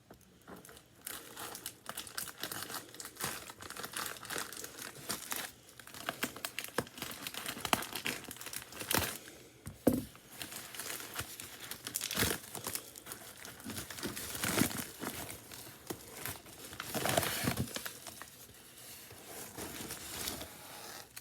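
Packaging being opened by hand: paper and plastic crinkling and tearing in irregular bursts, with a few sharper knocks midway.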